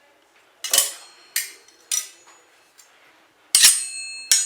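A small metal ladle and a metal spatula struck and scraped against each other, a foley sound for a lance: three short metallic strokes, then louder ringing clangs near the end.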